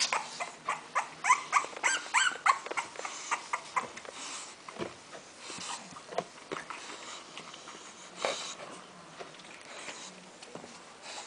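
Newborn English bulldog puppies squeaking and whimpering, many short rising-and-falling cries in quick succession for the first three seconds or so. Then the cries thin out to a few faint ones among short rustling noises.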